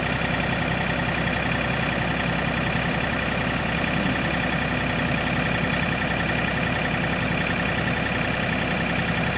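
John Deere tractor engine running at a steady speed, with no change in pitch or level.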